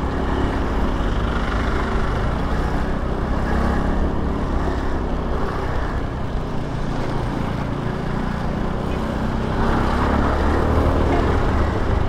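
Engine and road noise of a motorcycle riding slowly past a line of stopped, idling cars and trucks: a steady low engine hum with tyre and traffic noise, a little louder about ten seconds in.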